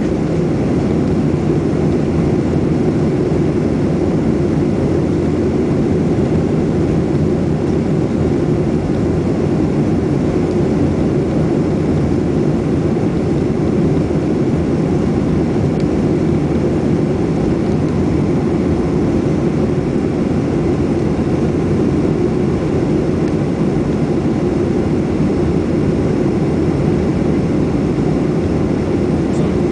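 Steady cabin noise of a jet airliner descending on approach with flaps extended, heard from a window seat over the wing: an even, low rumble of engines and airflow with no change.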